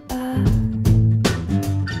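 Recorded song playing: strummed acoustic guitar over sustained notes, with no singing.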